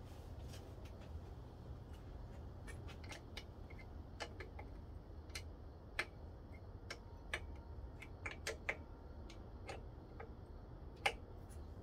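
Faint, irregular light metallic clicks and taps of a wrench on the carburetor mounting nuts as they are tightened, the loudest click near the end, over a low steady hum.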